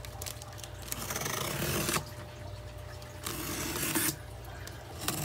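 Packing tape on a cardboard box being slit and torn open with a pointed tool: two scratchy tearing strokes, each about a second long, with light ticks and scrapes between them.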